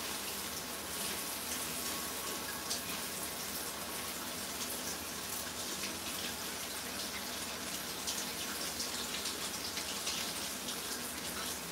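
Steady hiss with faint crackles from a pot of aloo qeema cooking on a gas burner, with soft rustling of fresh coriander being sorted by hand.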